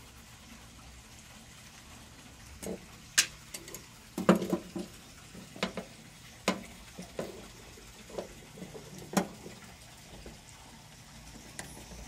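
Irregular clicks and knocks of metal and plastic as the quick-connect coupler of an air-conditioning charging hose is handled and pushed onto the A/C service port, over a faint steady low hum.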